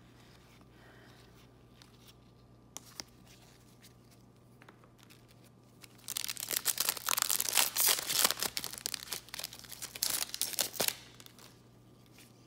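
A plastic foil trading-card pack being torn open and its wrapper crinkled: a loud crackling run of about five seconds that starts around six seconds in. Before it, only a few faint clicks.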